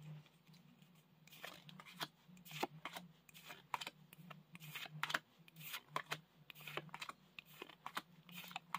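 Pokémon trading cards being flipped through by hand, each card slid from the front of a pack's stack to the back. This makes faint, irregular soft clicks and swishes, a couple every second, from about a second in.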